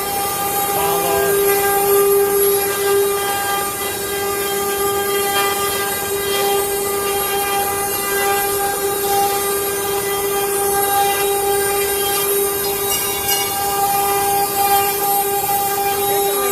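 CNC router spindle running at speed, a steady high whine with a hiss of cutting beneath it.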